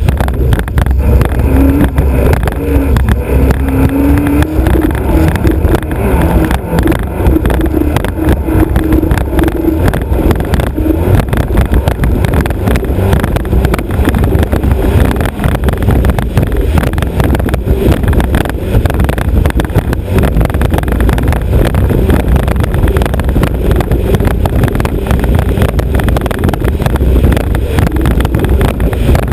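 Alfa Romeo Autodelta 2.5 V6 of a racing hydroplane running steadily under way, its note wavering a little over the first several seconds. Heavy wind rush is on the bow-mounted microphone.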